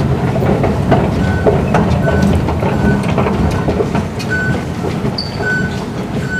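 Underground MRT station ambience: a steady low train rumble, with short high beeps repeating about once a second and scattered footsteps. A brief higher tone sounds about five seconds in.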